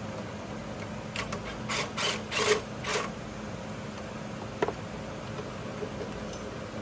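Ratchet and 10 mm socket backing a bolt out on the engine bay: about six short ratcheting strokes in the first half, then a single sharp click, over a faint steady hum.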